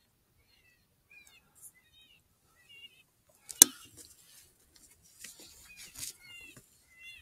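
Lucky Duck Roughneck electronic predator caller playing a distress sound: short, high squeaky chirps that bend in pitch, repeating about every half second. One sharp click comes about three and a half seconds in, followed by a brief rustle of handling noise.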